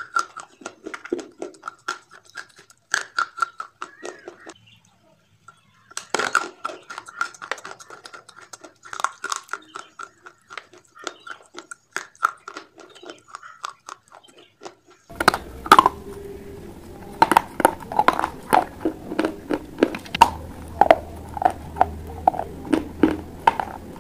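Close-miked biting and chewing of clay pipe pieces: a dense run of sharp crunches and clicks, with a brief pause about four seconds in. Partway through, the crunches grow louder over a steady low hum.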